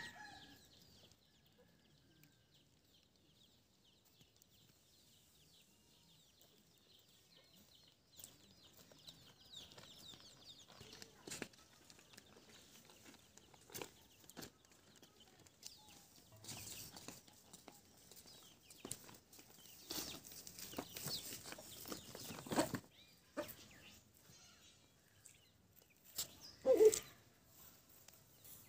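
Chickens clucking amid scattered rustles and clicks, with a short call right at the start and one loud cluck near the end.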